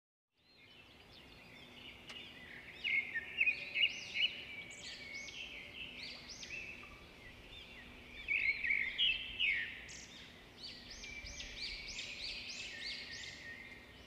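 Many small birds chirping and singing at once, a dense chorus of short rising-and-falling chirps over a faint hiss. It fades in just after the start, with louder clusters of chirps about three seconds in and again about eight to nine seconds in.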